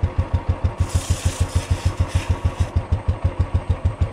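Motorcycle engine idling in first gear, with a steady, even beat of about seven or eight pulses a second. About a second in, an aerosol chain cleaner hisses for roughly two seconds as it is sprayed onto the chain.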